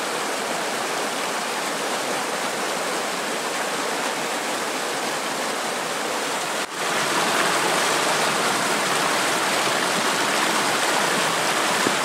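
Fast-flowing mountain river rushing over rocks in white-water rapids, a steady loud wash of water. It drops out for an instant about two-thirds of the way through and comes back slightly louder.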